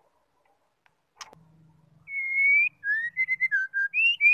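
White-rumped shama singing a clear whistled phrase: one long, slightly rising whistle, then a quick run of short whistled notes, rising again at the end. A sharp tap comes just before the song.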